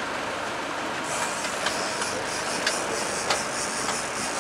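Steady rushing noise of a fishing boat's engine with wind and water, with several short sharp clicks in the second half.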